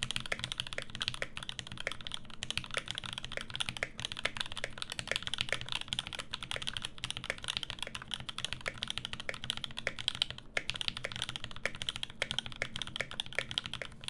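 Typing on a KL-90 mechanical keyboard with lubed and filmed 67g Tangerine linear switches on an aluminum plate: a fast, continuous clatter of keystrokes with a brief pause about ten and a half seconds in. A faint steady low hum runs underneath.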